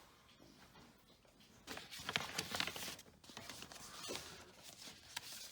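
Rustling and crackling of scattered paper and debris, loudest for about a second starting near two seconds in, with a few sharp clicks after it.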